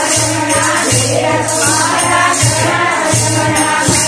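Group of women singing a Marwari devotional bhajan together, keeping a steady beat with jingling wooden kartal clappers.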